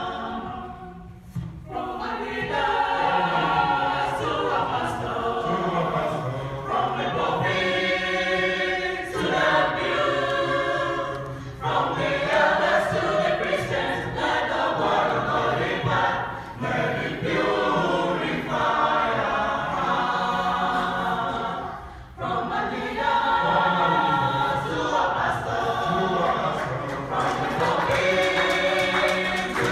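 Youth choir singing together into handheld microphones, with two brief pauses between phrases.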